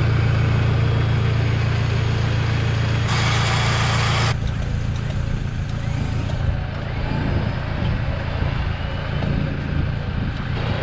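Electric recovery winch on the front of a Toyota Hilux reeling in its line to pull a car out of floodwater, its motor running steadily under load over the pickup's running engine. A louder hiss joins about three seconds in, and a little after four seconds the motor note drops and settles to a lower steady hum.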